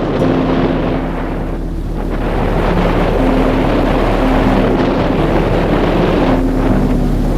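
A small ferry boat's engine running while under way, with heavy wind noise buffeting the microphone.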